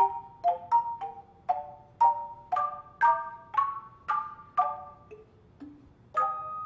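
Handbell choir playing a piece: struck chords of bells ringing out about twice a second, thinning to a brief lull with two soft low notes, then fuller chords come back in near the end.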